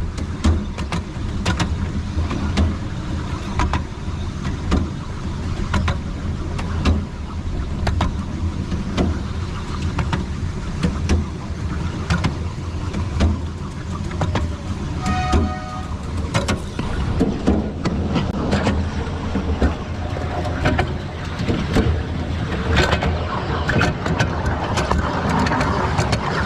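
Miniature railway train running along its narrow-gauge track: a steady low rumble with frequent irregular clicks and clacks of the wheels on the rails.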